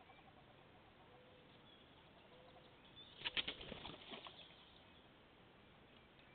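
Wood duck hen's wings flapping as she drops out of the nest box and takes off: a quick run of wingbeats about three seconds in, lasting about a second.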